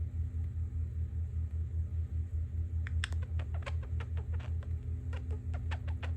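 Low, steady rumble of construction noise, pulsing several times a second. About halfway through, a budgerigar starts a quick run of short chirps and clicks over it.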